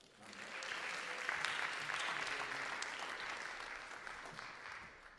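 Audience applauding a named award recipient, swelling quickly after the announcement and dying away near the end.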